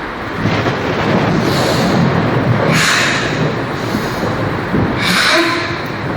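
Two forceful hissing exhalations about two seconds apart, the controlled breathing of Five Ancestors Fist Sanchin training, over a steady wash of rain noise and a low rumble.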